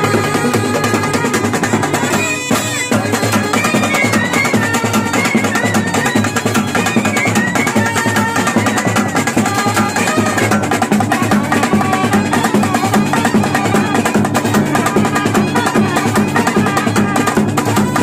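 Brass band playing: trumpets carry a wavering melody over dense, fast strokes on snare and side drums and a bass drum.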